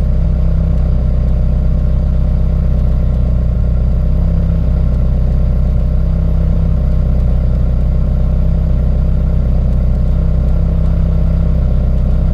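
Turbocharged Honda Integra's engine idling steadily.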